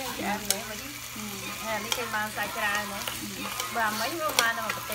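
Food sizzling on a tabletop cooker, with scattered sharp clicks.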